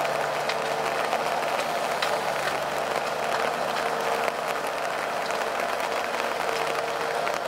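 Valmet 840.3 forwarder's diesel engine running steadily with a full load of logs aboard. Over the engine hum lies a dense crackling noise with scattered sharp clicks.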